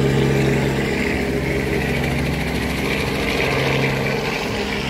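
Small helicopter flying by, its engine and rotor making a steady drone.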